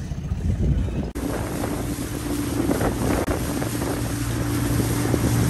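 A boat's motor running steadily under way, a low hum with water and wind noise on the microphone. The sound changes abruptly about a second in.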